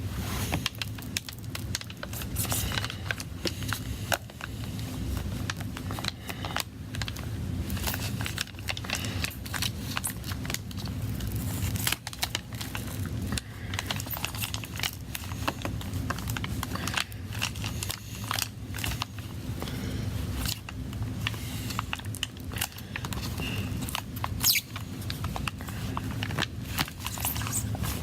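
Irregular small clicks, crackles and scrapes of hand tools working inside an iPad during a battery replacement, over a steady low hum.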